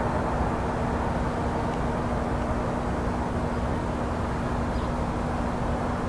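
Steady low outdoor rumble with a constant low hum underneath and no distinct events, the kind of background noise of traffic or an idling engine.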